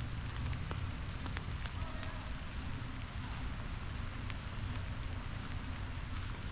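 Light rain falling on forest leaves, with scattered individual drops ticking over a steady hiss and a low steady rumble underneath.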